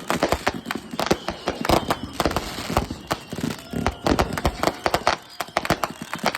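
Fireworks going off, many sharp bangs and crackles in quick, irregular succession.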